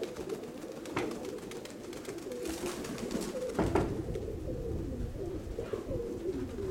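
Several domestic Nikolaev pigeons cooing at once, overlapping coos running throughout. A little past halfway a rush of noise comes in and low wind rumble on the microphone follows.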